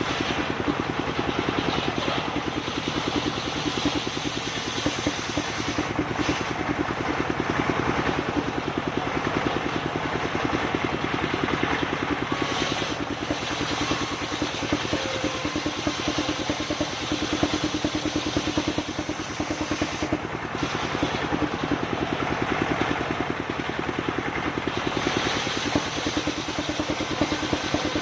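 Engine of a wood-cutting sawmill running steadily with a fast, even firing beat. Its higher hiss drops away briefly a few times.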